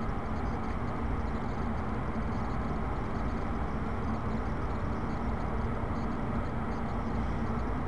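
Steady background noise of the room: an even low hiss and hum with a faint steady tone underneath.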